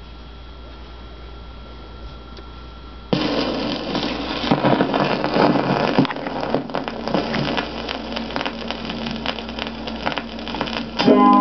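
Record player's steady hum and hiss, then about three seconds in the stylus sets down on a 45 rpm vinyl single and the run-in groove gives loud crackle and pops of surface noise. Music starts playing from the record near the end.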